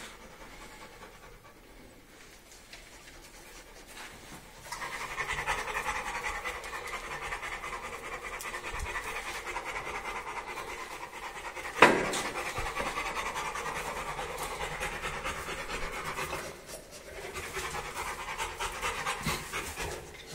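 A dog panting in quick, steady breaths, starting about five seconds in and pausing briefly near the end. A single sharp knock about twelve seconds in is the loudest sound.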